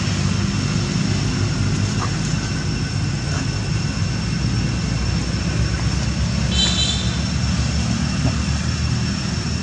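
A steady low rumble, with thin steady high tones above it and a brief high chirp about seven seconds in.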